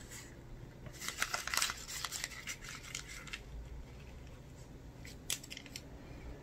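Crinkling of a paper lottery ticket handled in the hands: a dense run of crackling for about two seconds, followed by a few faint rustles.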